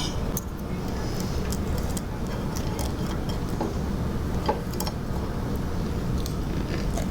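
A dog chewing crispy microwaved bacon: a few short, faint crunches over a steady low rumble.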